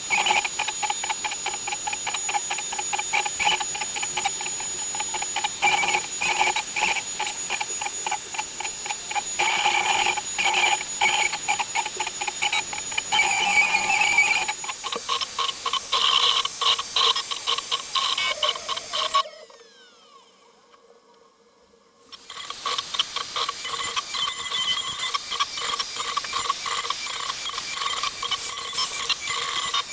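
A PrintNC CNC router's spindle cutting wood: a steady high whine over dense, rapid clicking from the cutter. About two-thirds through, the cutting drops away for about three seconds with a falling tone, then starts again at a different pitch.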